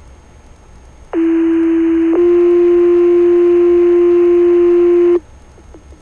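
Two-tone sequential radio paging tones setting off firefighters' pagers: one steady tone for about a second, then a slightly higher tone held for about three seconds, cutting off abruptly. Faint radio hiss comes before and after.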